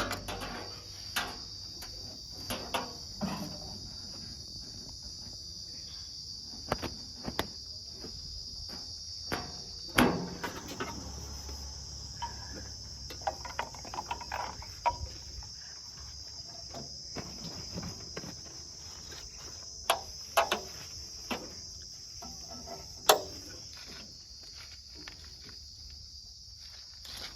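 Steady high-pitched insect chorus, crickets, with scattered sharp clicks and knocks, the loudest about ten seconds in and near the end.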